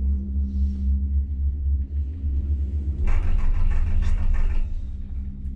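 Ten-seat detachable gondola cabin (Doppelmayr 10-MGD) in motion, heard from inside: a steady low rumble with a constant hum. Just past halfway there is a louder, harsher rattling stretch lasting about a second and a half.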